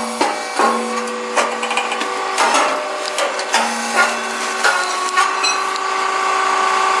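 Popped grain cake machine running: a steady mechanical hum with a short burst of hiss and clatter every half second to a second as the cakes are popped.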